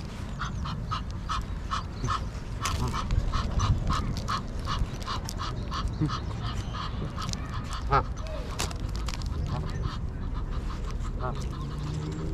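Ducks calling, a steady run of short quacks about three a second that breaks up into scattered calls later on. A sharp loud sound stands out about eight seconds in, over a low rumble.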